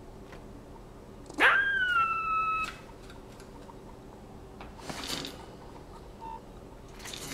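Squirrel giving one long, high whining squeal that sweeps up sharply and then holds nearly steady for just over a second before cutting off, followed later by two fainter rustling scratches.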